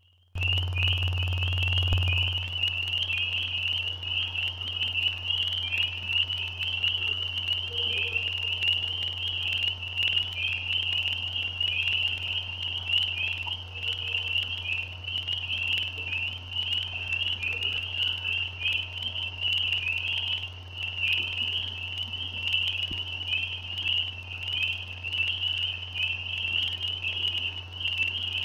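A dense breeding chorus of frogs calling from a lake: a continuous high-pitched trilling shrill of many overlapping voices, cutting in just after the start. A steady low hum lies under it.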